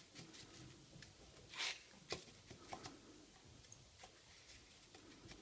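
Faint handling sounds of gloved hands pressing and shaping a nori-wrapped sushi roll: soft rubs and a few light ticks, the loudest a brief rustle about a second and a half in.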